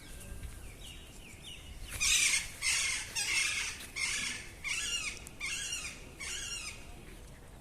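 Parrots calling: a run of about seven loud, harsh squawks in quick succession, after a few fainter chirps.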